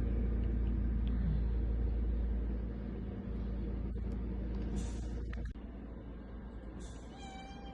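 An injured cat meowing once near the end, over a steady low hum that drops away about two-thirds of the way in.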